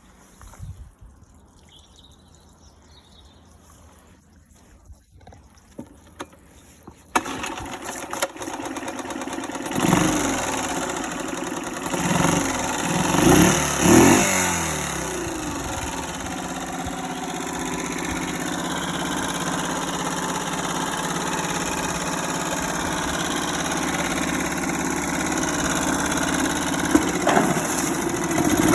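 Mercury 3.5 hp long-shaft outboard motor starting suddenly after several quiet seconds with a few clicks. It is revved up and down about three times, then settles into a steady run. It still has an old spark plug giving a poor spark, which keeps it from accelerating properly.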